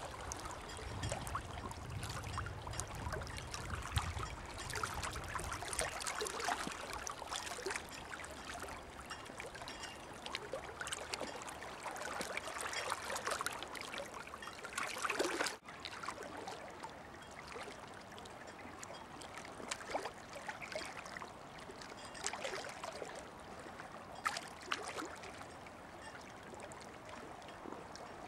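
Water trickling and lapping, with many small splashes and gurgles and a low rumble in the first few seconds. It cuts out for an instant about halfway through, then carries on a little quieter.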